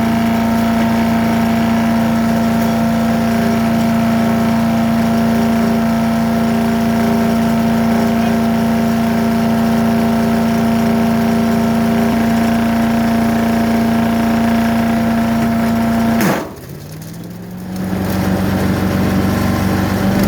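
Gas engine of a Harbor Freight wood chipper running steadily at full speed, with a log jammed in the chute. About 16 seconds in it bogs down sharply and nearly stalls, then picks back up.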